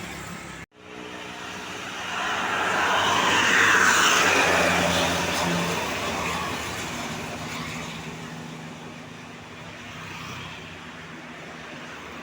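A road vehicle passing close by: engine and tyre noise swells to a peak about four seconds in, then slowly fades, after a brief cut in the sound just under a second in.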